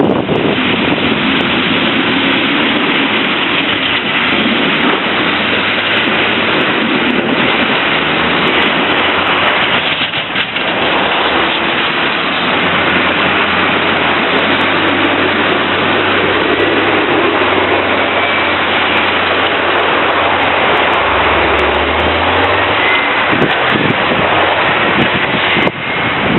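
Snowplow trucks driving down the street: a steady low engine drone under a loud, even rush of noise.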